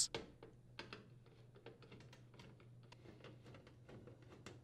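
Faint, quick, irregular clicks and scrapes of a hand screwdriver turning screws into a furnace's sheet-metal access panel.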